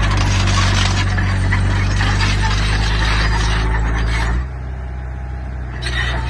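Heavy diesel construction machinery running steadily under a dense metallic clatter. About four and a half seconds in, the clatter drops away and the engine note falls lower and quieter, then both pick up again near the end.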